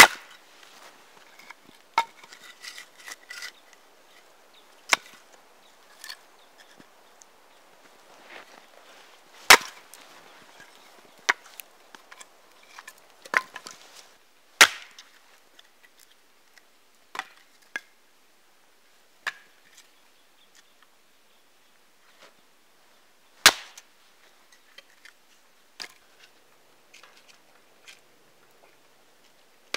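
Hatchet splitting small firewood logs on a chopping block: about a dozen sharp cracks of the blade biting and splitting wood, at irregular intervals, the loudest about a third of the way in and again near the end.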